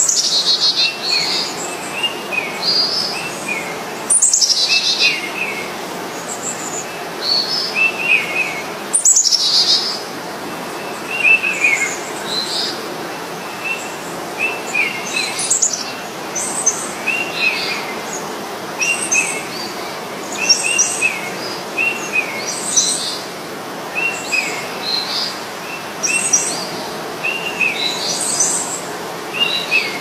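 A flock of ringneck parakeets calling: a steady run of short chirps, many in quick pairs, with a few louder high calls that fall in pitch near the start and about four and nine seconds in.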